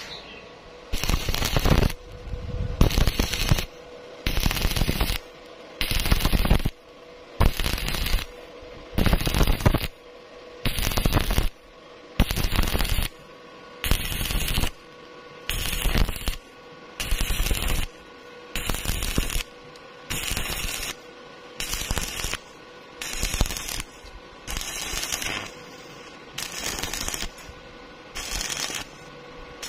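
Stick (arc) welding a thin steel pipe to a steel plate: the electrode's arc crackles and sputters in bursts under a second long, struck and broken again roughly every one and a half seconds in a steady stop-start rhythm.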